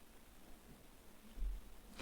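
Quiet room tone broken by a single dull, low thump about one and a half seconds in.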